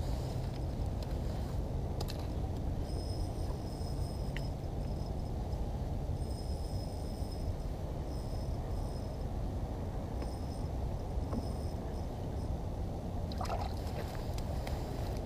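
Steady low outdoor rumble, with a brief run of light clicks near the end from the spinning reel of an ice-fishing rod as a fish is brought up.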